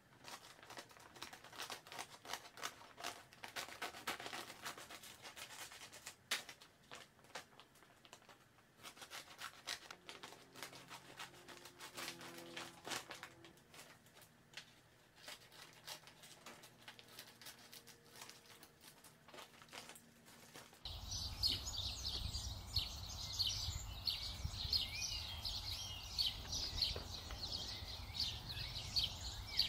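Scissors snipping through a woven plastic feed bag, the stiff plastic crinkling and rustling in a run of small clicks and snips. About twenty seconds in, this gives way to a dense, rapid outdoor chirping with a steady low rumble of background noise.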